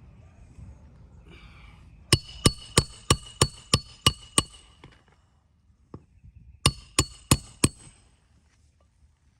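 Roofing hatchet hammering nails into a replacement asphalt shingle: a run of eight sharp, ringing metal strikes at about three a second, a pause, then four more.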